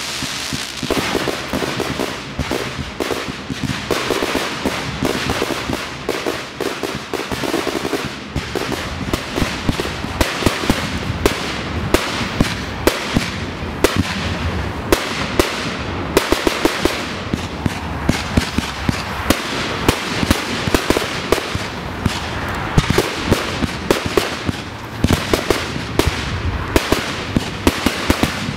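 Fireworks display: a dense, continuous stream of crackling and sharp bangs from bursting aerial shells. The reports come thicker and louder after about eight seconds.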